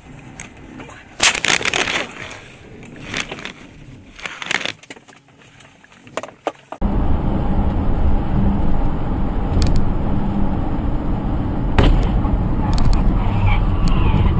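Car collision: a loud crunching crash about a second in, followed by scattered bangs and clatter. After a sudden cut, steady engine and road noise from inside a moving car.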